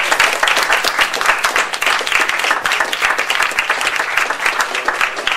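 Audience applauding: many people clapping steadily and densely.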